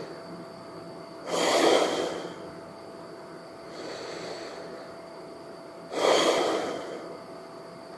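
A man breathing heavily from exhaustion: two loud, sudden breaths about four and a half seconds apart, each fading over about a second, with a softer breath between them.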